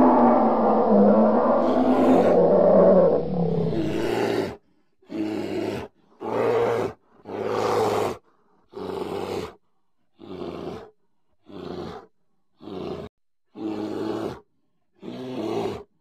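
A large animal roaring in one long, drawn-out call for about the first four seconds, then a run of nine short growls about once a second, with silence between them.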